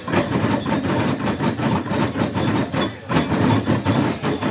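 Small hand-held tihar drums of the Likurai dance beaten together by a line of women dancers, a fast, dense rhythm of strikes with a brief dip about three seconds in.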